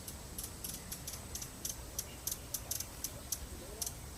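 Broad-billed hummingbird giving a run of short, high chip notes, about four a second at an uneven pace.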